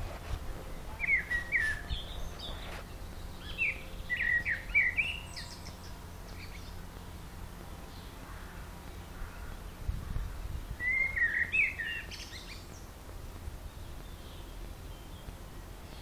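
A songbird singing in short phrases of quick whistled notes, three phrases with pauses between them: about a second in, around four seconds in, and around eleven seconds in. A steady low rumble lies underneath.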